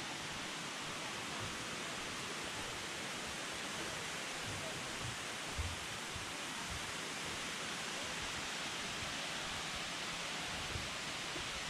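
Steady rush of falling water from the Kuang Si waterfall cascades, with one soft low thump about halfway through.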